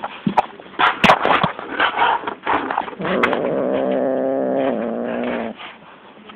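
Domestic cat giving one long warning growl, steady in pitch for about two and a half seconds, from a cat guarding a toy in its paws. Before it, about three seconds of scuffling and rustling.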